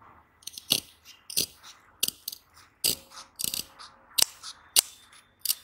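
Long-bladed scissors cutting through a strip of fusible buckram folded double, following curved scallop lines: a string of sharp snips, one roughly every half second.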